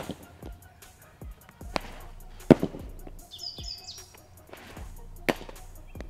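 Background music with a steady beat, cut by several sharp knocks as thrown wiffle balls hit the strike-zone target and backstop. The loudest knock comes about two and a half seconds in.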